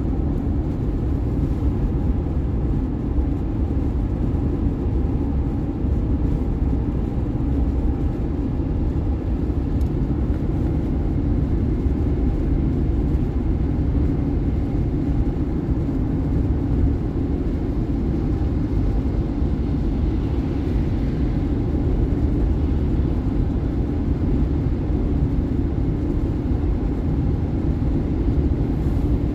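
Car driving at highway speed: a steady low rumble of road and engine noise that does not let up.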